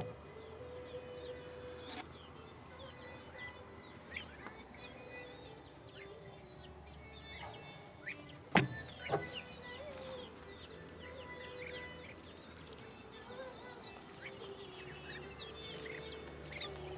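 Chickens and chicks calling in a poultry yard: many short, high cheeps throughout. A sharp knock comes about eight and a half seconds in, with a smaller one just after.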